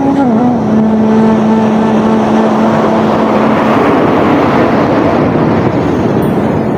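Sea waves over soft instrumental music: a long held low note fades about halfway through as the rush of a wave swells and then eases off.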